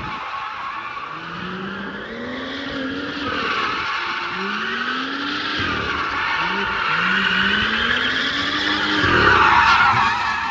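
BMW M2 drifting in circles: its turbocharged straight-six revs up again and again in rising pulls over a continuous tyre squeal, which is loudest near the end.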